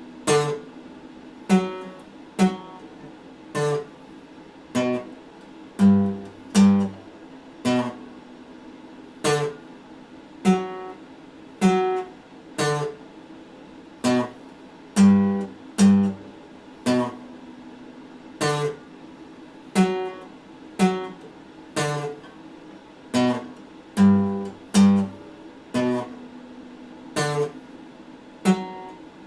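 Acoustic guitar played slowly: single chords struck about once a second and left to ring, some in quick pairs, in a pattern that repeats every nine seconds or so.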